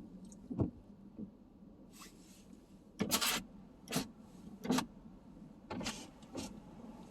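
A series of about seven short rubbing or scraping noises, the loudest about three seconds in, over a low steady hum.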